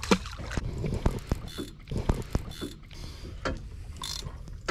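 Irregular sharp knocks and clicks of tackle and gear against the boat, over wind rumbling on the microphone, with water splashing at the boat's side at the start.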